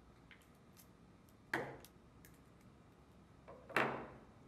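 Quiet handling sounds from small wiring work: faint light clicks, and two short sharp rustling knocks as stripped wires and a small circuit board are handled, one about a second and a half in and one near the end.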